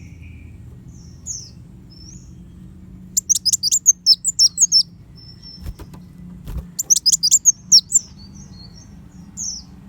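Van Hasselt's sunbird (kolibri wulung) singing: two runs of rapid, high chirps, with scattered single high notes between them. A couple of brief knocks come midway, over a steady low hum.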